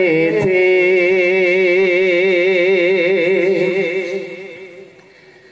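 A man singing a naat unaccompanied, holding one long note with a steady wavering vibrato that fades away about four seconds in.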